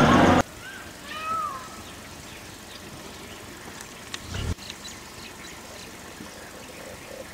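A loud mix of sound cuts off abruptly just after the start, leaving faint background. About a second in comes one short, high animal call that rises and falls in pitch. A brief low rumble with a few clicks follows about four seconds in.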